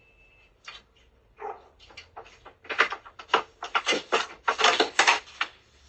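A dog barking in quick, repeated barks, a few a second, growing much louder about three seconds in.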